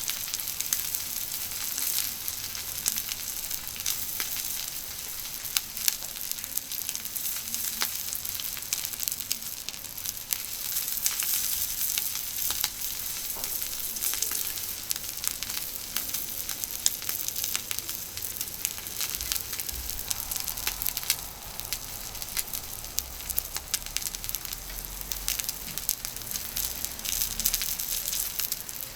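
Wagyu beef steak sizzling steadily on a hot iron griddle, with frequent sharp pops and spits of fat.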